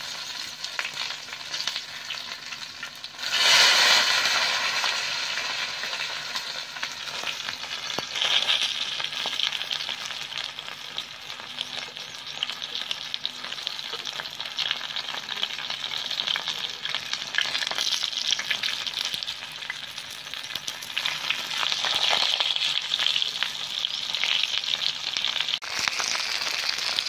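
Banana-leaf-wrapped fish parcels frying in hot oil on a cast-iron dosa griddle: a steady crackling sizzle that flares up sharply about three and a half seconds in, and swells again around eight seconds and near twenty-two seconds.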